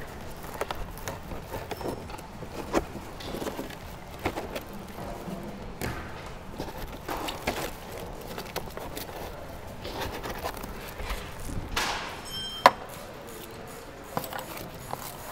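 Irregular scraping, rustling and light knocks as excess seat foam is cut and pulled away by hand, with one sharp click about three-quarters of the way through.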